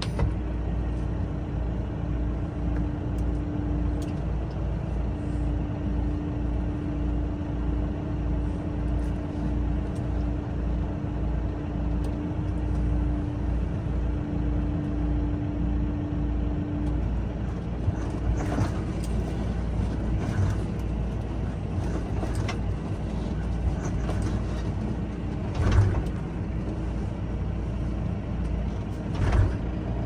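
Tractor's diesel engine running steadily, heard from inside the cab. A steady hum sits over the engine through the first half and then stops. Several sharp knocks or clunks come in the second half.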